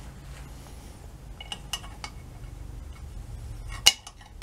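Light metallic clinks of a hand tool: a few small ticks about a second and a half in, then a single sharp clink near the end as an open-end wrench is set on a silver-soldered nut on the gearcase. A low steady hum runs underneath.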